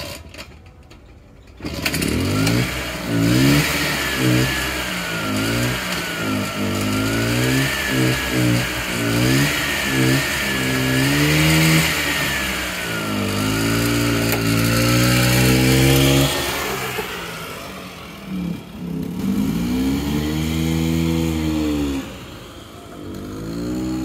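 Small single-engine home-built motorbike running and being ridden, its pitch rising and falling again and again as the throttle is opened and closed. The engine sound comes in suddenly about a second and a half in, fades briefly near the middle and near the end, and comes back as the bike draws near.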